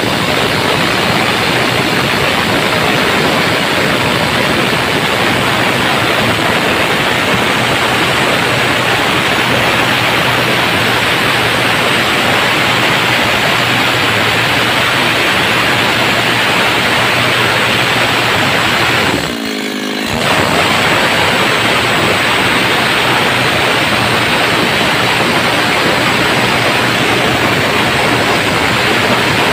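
Stihl chainsaw at full throttle ripping lengthwise along a log, a loud steady rasping noise from the chain cutting wood, with one brief dip about twenty seconds in.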